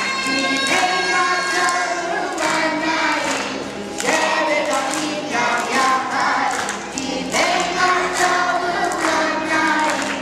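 A group of young preschool children singing a song together in chorus.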